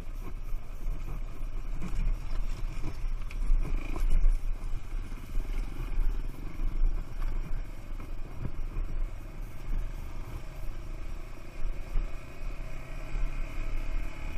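Trail motorcycle engine running at varying throttle while riding a rough dirt track, with short knocks and rattles from the bumps.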